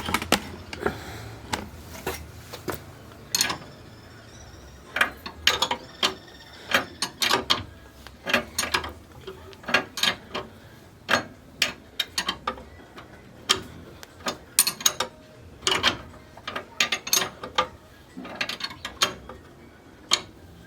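Ratchet wrench clicking in short, irregular runs as a threaded part of the steering linkage is worked loose, which turns easily.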